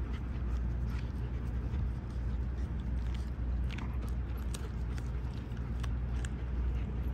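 A German Shepherd puppy chewing raw chicken bone-in, with scattered sharp crunches, over a steady low rumble.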